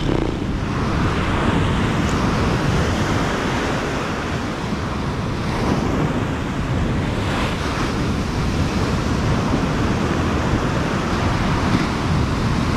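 Ocean surf breaking and washing up the beach in a steady roar, with wind buffeting the microphone.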